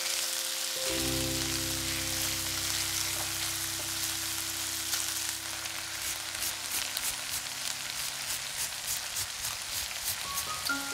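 Food frying in a hot pan: a steady sizzle that breaks into frequent crackling pops from about halfway through, under background music.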